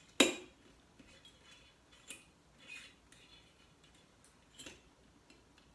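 Metal lamp harp and brass socket clicking as they are handled and worked loose: one sharp click just after the start, then a few fainter scattered clicks.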